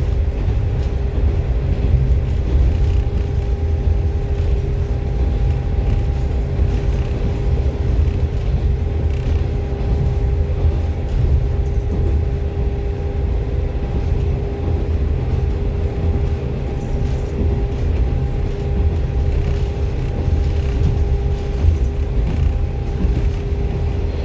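Diesel train running at steady speed: a constant low rumble with a steady whine over it.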